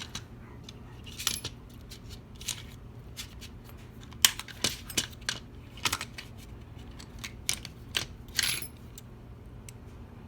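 Irregular small metallic clicks and scrapes, some with a brief high ring: a small screwdriver working at a tiny screw in a metal lock body, with light clinks of metal on metal.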